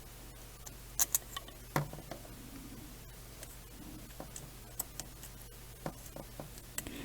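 Scattered light clicks and taps of small screws, a hex driver and carbon-fibre frame parts being handled during assembly, over a faint steady low hum.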